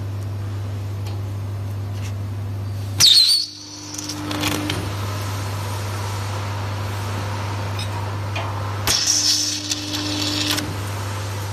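Stud welding gun firing two welds about six seconds apart. Each weld is a sudden loud burst of arc noise with a held tone under it, lasting around a second and a half, as a steel weld stud is fused to a steel plate. A steady low hum runs underneath and dips during each weld.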